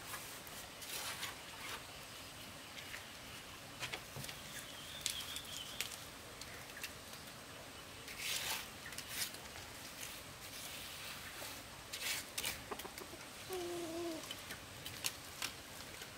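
Scattered scrapes and taps of hand work, with a faint chirp about five seconds in and a short wavering call near the end.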